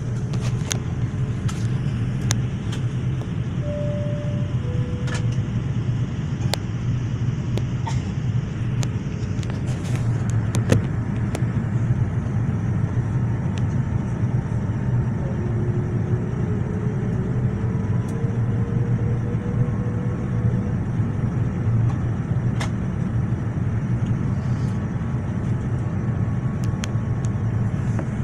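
Boeing 787 cabin noise in flight: a steady deep rumble of engines and airflow, with small scattered clicks and rattles. About four seconds in, two short falling tones sound.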